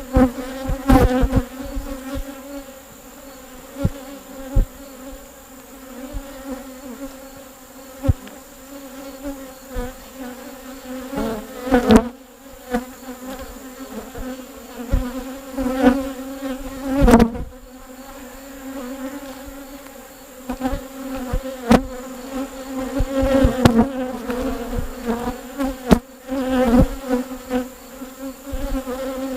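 Honeybees buzzing around an open hive, a steady many-winged hum, broken by a few sharp knocks, about five times.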